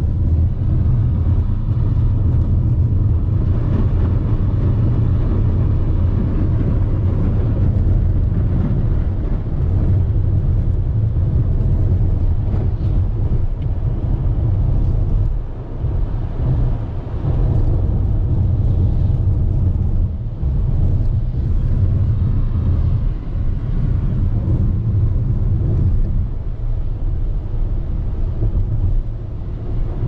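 Car driving at highway speed, heard from inside the cabin: a steady low rumble of tyres and engine, dipping briefly twice around the middle.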